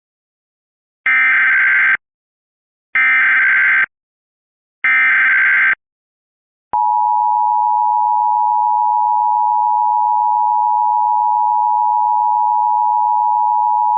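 Emergency Alert System broadcast opening: three harsh digital data bursts of about a second each, a second apart, which make up the SAME header. About seven seconds in, the steady two-tone attention signal begins and holds.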